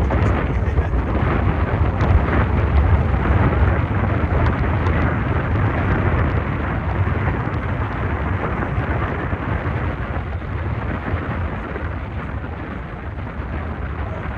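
A long roll of thunder: a deep rumble that swells over the first few seconds, then slowly fades.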